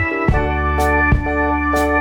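Background music: a keyboard-led instrumental with a deep bass line and a steady beat.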